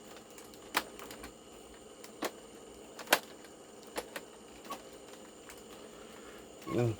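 Scattered sharp plastic clicks from a Kenmore Intuition upright vacuum being handled with its motor off, about five clicks spread over several seconds.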